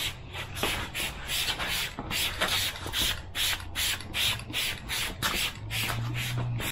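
Hand trigger spray bottle of air-filter cleaner being pumped over and over, about three or four quick hissing sprays a second, soaking a reusable intake air filter element; the spraying stops shortly before the end.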